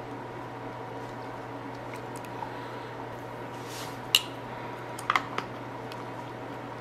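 A spoon stirring almond milk into oats in a glass mason jar: a soft swish, then a few sharp clinks of spoon on glass, one just after four seconds in and a quick pair a second later, over a steady faint hum.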